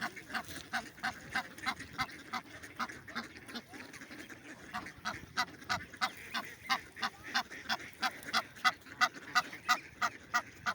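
A goose honking over and over in a fast, even series of short honks, about three a second, getting louder in the second half.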